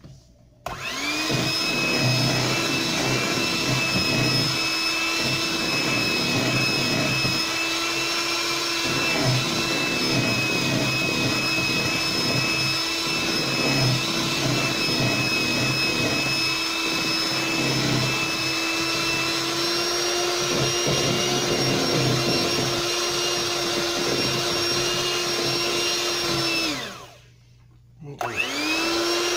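Electric mixer motor running steadily at one speed, beating cheesecake batter. It is switched off and winds down a couple of seconds before the end, then switched straight back on, its pitch climbing as it gets up to speed.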